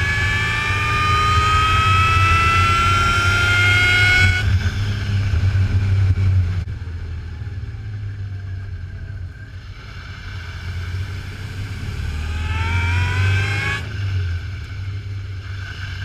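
Swapped GM 3800 V6 accelerating, its pitch rising steadily for about four seconds before dropping away. A second, shorter pull comes near the end. The owner says the engine still misfires at about 2200 to 2800 RPM.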